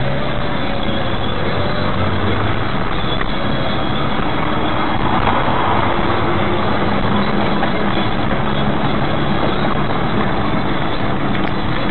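A car driving, heard from inside the cabin through a dashcam's microphone: a steady mix of engine and road noise, with the engine note shifting a little now and then.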